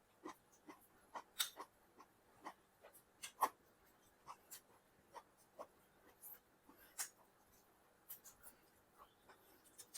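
Faint, irregular eating sounds from a person eating chicken biryani: small wet mouth clicks and smacks of chewing, a few every second, with a somewhat louder one about seven seconds in.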